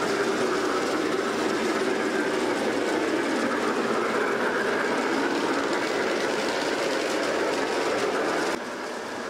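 G-scale model train running along its track with a steady clatter of wheels on rail; the sound cuts off sharply near the end.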